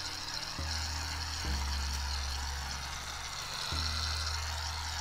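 Aerosol can of shaving cream spraying foam into a plastic bag: a steady hiss, with soft background music underneath.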